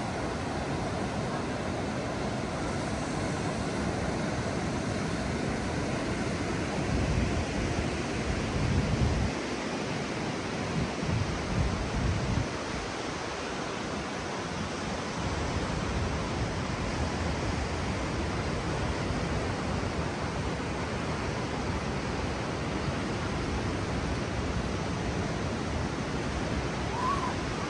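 Ocean surf breaking and rushing onto a sandy beach in a steady wash of noise, with a few louder low rumbles between about a quarter and nearly halfway through.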